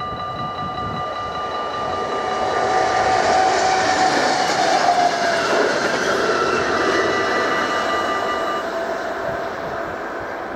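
Electric Sprinter commuter train passing at speed over a level crossing. Its rush of wheels and running gear builds to a peak about four seconds in and then fades. Over it the crossing bell rings steadily and stops a couple of seconds before the end, as the barriers begin to lift.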